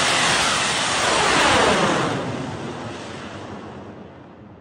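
A bang fai saen, a large black-powder festival rocket, firing off its launch tower with a loud, steady rushing noise. About two seconds in, the noise starts falling in pitch and fading as the rocket climbs away.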